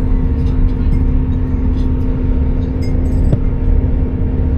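Steady low rumble of a moving vehicle heard from inside, with a constant two-note hum and a few faint clicks and rattles.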